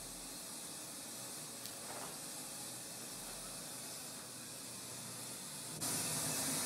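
Faint steady hiss, then a little before the end a louder hiss of television static comes on abruptly and holds steady.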